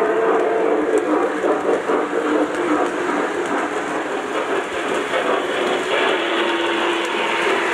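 Lionel O-gauge model freight cars rolling over three-rail track, a steady loud rumble and clatter of wheels.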